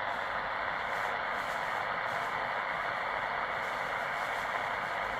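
Shortwave receiver on the 20-meter band giving a steady hiss of band noise through its narrow voice filter, with no station transmitting. It is the open frequency after a CQ call, waiting for replies.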